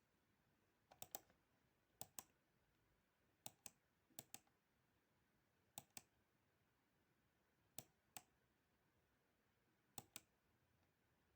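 Faint computer mouse clicks, mostly in quick pairs like double-clicks, seven groups spread over the stretch.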